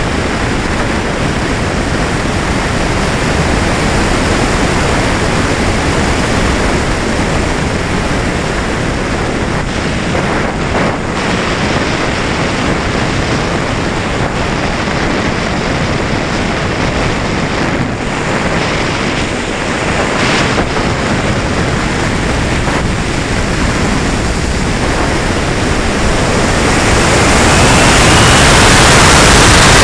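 Rushing wind noise from airflow over an onboard camera on a radio-controlled sailplane in flight. It is steady, then grows louder and hissier near the end, with a faint rising whistle.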